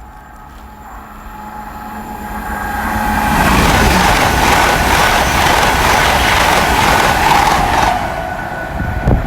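Passenger train running through the station, growing louder over the first few seconds into a steady loud rush of wheels and motors, then easing off near the end.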